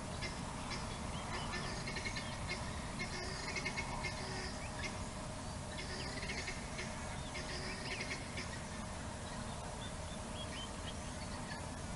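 Small wild birds chirping, short clusters of high notes repeating every second or two, over a steady low background noise.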